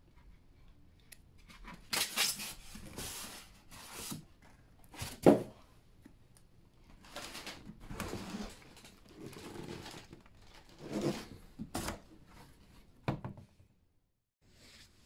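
Cardboard box flaps being opened and handled: bouts of cardboard scraping and rubbing, with a sharp knock about five seconds in and a couple of short snaps near the end.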